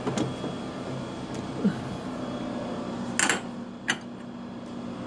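A few sharp metal clinks from hand tools working on the engine, the loudest about three seconds in, over a steady low hum.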